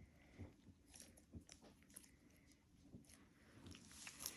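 Faint, scattered soft crackles and small clicks of slow-rising foam squishy toys being squeezed and handled.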